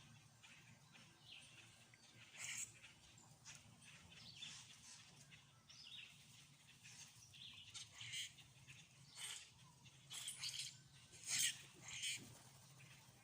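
Songbirds giving short, high-pitched chirps and calls, scattered and faint, with a louder call a couple of seconds in and a cluster of louder chirps near the end, over a faint low steady hum.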